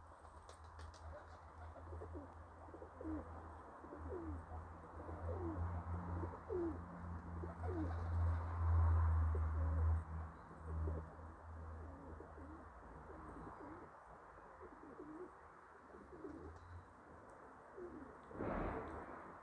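Domestic pigeons cooing over and over in the loft, many short gliding coos overlapping. Under them runs a low rumble that is loudest midway. A short noisy burst comes near the end.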